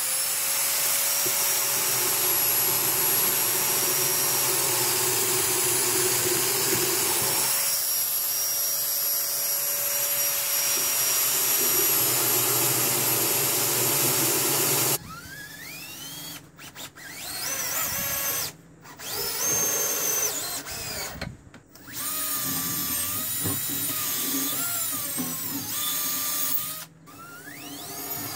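Festool Domino joiner running with its dust extractor for about fifteen seconds as it cuts mortises in hardwood. Then a cordless drill runs in several short bursts, its pitch rising and falling as the trigger is worked, with brief stops in between.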